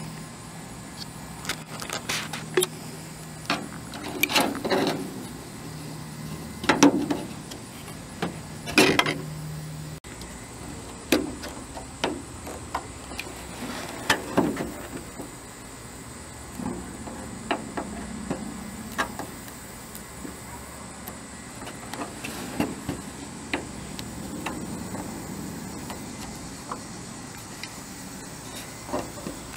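Scattered sharp clicks and light knocks of a sheet-metal gutter and downspout outlet being handled and pressed into sealant, the loudest a few seconds apart early on. A low steady hum runs under the first third and then stops.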